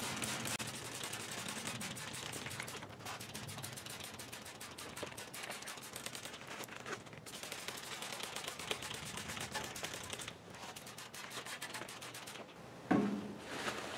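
Hand trigger spray bottle pumped over and over, a rapid run of clicks and spritzes of water onto a bare steel fender panel, rinsing off rust remover to neutralize it.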